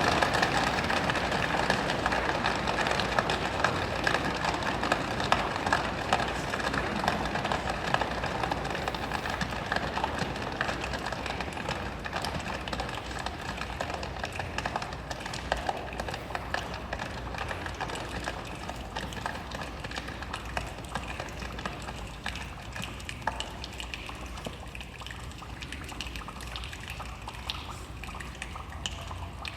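A children's choir imitating rain: a dense patter of small clicks, as of raindrops, that slowly dies away as the storm passes.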